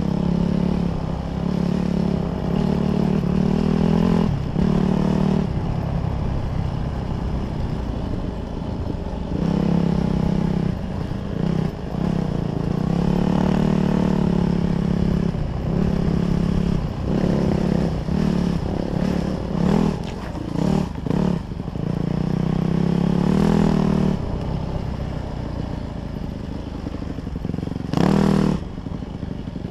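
Dirt bike engine heard from the rider's seat, pulling under throttle in surges of a few seconds with short drops between as the throttle is opened and closed. Scattered knocks come from riding over the rough track, and there is a brief loud burst near the end.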